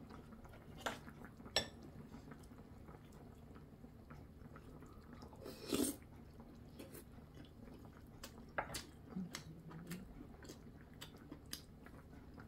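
Eating at a table: chopsticks and a metal spoon clicking against bowls, a loud slurp of stew from the spoon about six seconds in, and quiet chewing.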